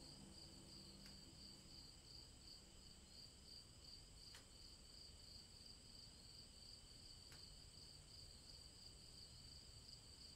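Faint, steady high-pitched chirring like an insect chorus, with a few soft clicks.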